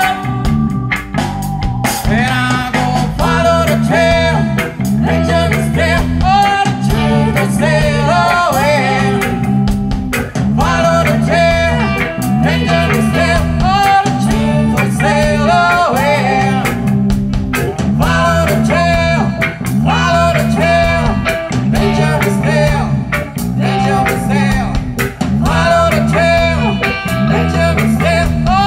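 Reggae band playing, with a sung vocal over a repeating bass line, guitar and drums.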